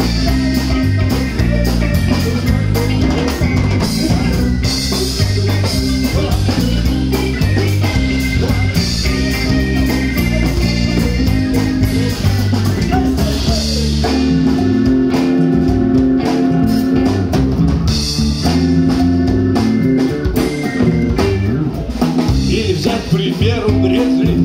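Live band playing an instrumental passage: drum kit keeping a steady beat under a moving bass guitar line and a Korg keyboard.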